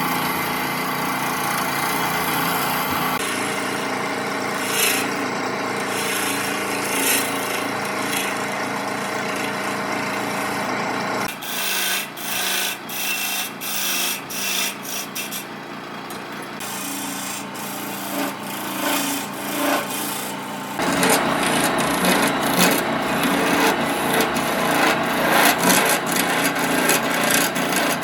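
Tools working palm wood. A steady machine-like run with a faint hum for the first ten seconds or so, then back-and-forth strokes about one to two a second for nearly ten seconds, then a louder, rougher steady run.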